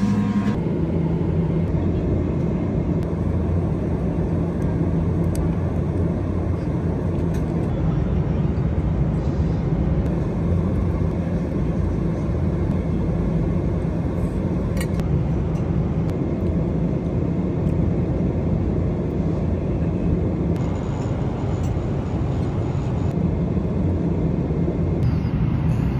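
Steady cabin noise of a jet airliner in cruise: an even rush of engines and airflow with a low, constant hum, and a faint click or two.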